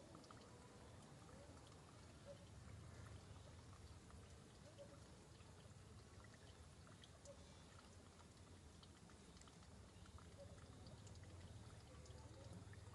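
Near silence: faint background hiss with a low hum, scattered faint ticks and a few short, faint chirps.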